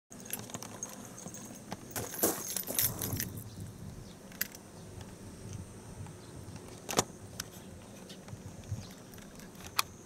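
Quiet outdoor ambience with a faint low rumble, broken by scattered sharp clicks and light jingles, a small cluster of them about two to three seconds in and a single sharper tick near seven seconds.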